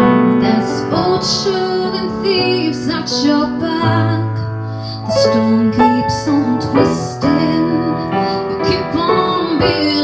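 A woman singing into a microphone, accompanied by a grand piano.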